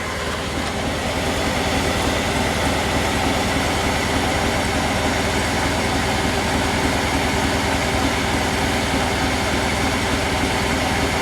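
Tractor engine idling steadily while the heavy cutter head of a silage cutter spins down toward a stop.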